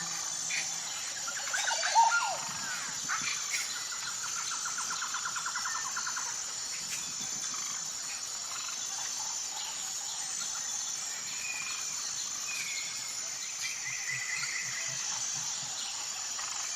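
Wild birds singing and calling. There are several separate calls about two seconds in, then a fast even trill lasting about two seconds, then scattered high chirps. A steady high-pitched drone runs underneath throughout.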